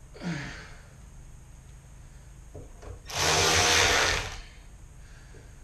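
A handheld power drill/driver runs in one burst of about a second, just past the middle, driving a screw into the cabinet's sheet metal.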